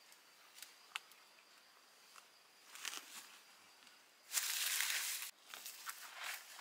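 Faint crunching and rustling, with a loud rasping noise lasting about a second some four seconds in.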